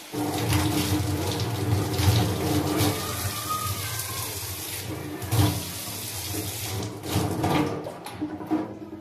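Kitchen tap water running and splashing into a stainless steel sink as a fish is rinsed under the stream. The tap comes on suddenly and stops near the end.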